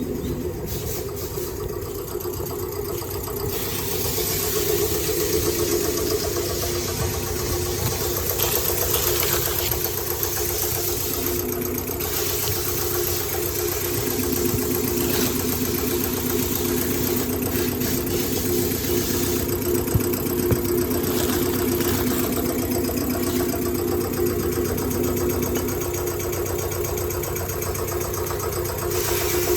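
Isuzu Forward truck's diesel engine idling steadily with a constant hum. A second, lower hum joins about twelve seconds in and drops out again about fourteen seconds later.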